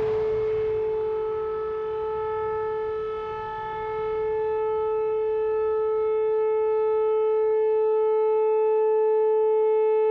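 Whelen rotating outdoor tornado warning siren sounding a steady tone. Its loudness dips and swells back as the rotating horn turns away and back toward the listener.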